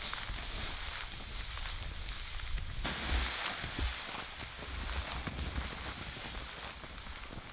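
Footsteps crunching in deep snow and a plastic sled sliding over it, faint and irregular, over a steady outdoor hiss and wind rumble on the microphone. The background hiss changes abruptly about three seconds in.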